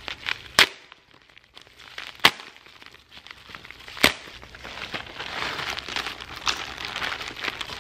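Padded bubble mailer opened by hand: three sharp rips as the sealed flap is pulled open, then a plastic bag crinkling steadily as it is drawn out of the envelope.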